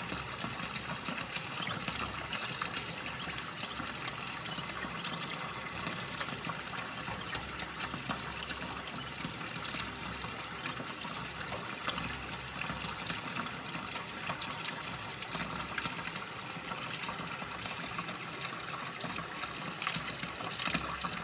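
Kitchen faucet running a thin, steady stream of water onto a stainless-steel sink around the drain, a continuous splashing trickle with occasional small ticks.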